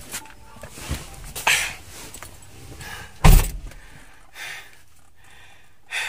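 A car door shutting with one heavy thunk about three seconds in, after rustling and shuffling as someone gets into the seat.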